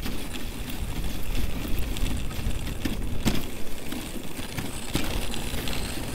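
Dog sled running over a packed, icy snow trail: a steady scraping rumble from the runners, with the sled rattling and clicking and a couple of sharper knocks, about three seconds in and again near five seconds.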